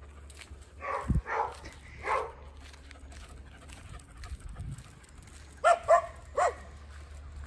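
A dog barking: three softer calls a second or two in, then three short, sharp barks near the end.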